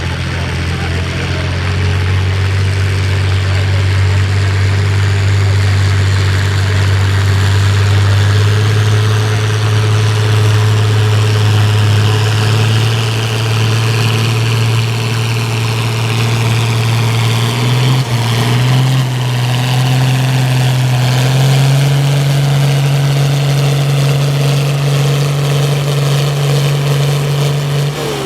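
John Deere 4020 tractor's six-cylinder engine running hard and steady under heavy load while pulling the sled. Its note steps up to a higher pitch about two-thirds of the way through.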